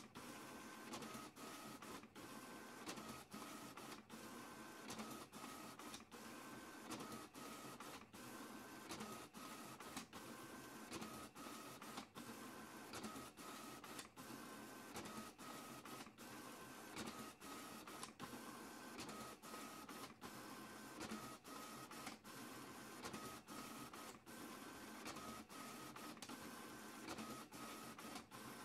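Printer working through a print job: a faint, steady mechanical whir broken by short pauses about once or twice a second, with a faint whine that comes and goes every couple of seconds.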